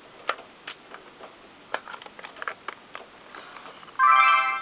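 Small plastic clicks and snaps as a battery is fitted into a Nikon Coolpix S6100 compact camera and its battery door is closed. Near the end comes a loud, steady electronic tone of about half a second: the camera's power-on sound.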